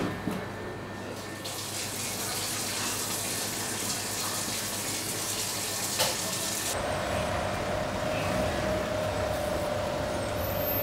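A knock at the very start, then a steady rush of running water, like a tap, for about five seconds, which stops abruptly. After that comes a steady hum over a low rumble.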